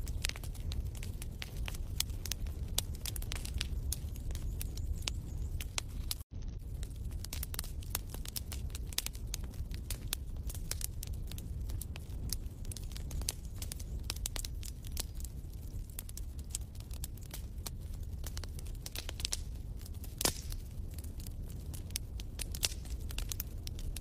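Wood fire crackling in a fireplace: a steady stream of small sharp pops and snaps over a low rumble. The sound cuts out for an instant about six seconds in.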